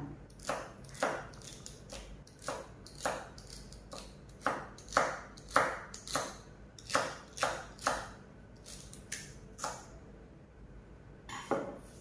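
Kitchen knife slicing celery on a cutting board: a run of short, sharp knife strikes, irregularly spaced at about one or two a second, with a pause of a second or so near the end.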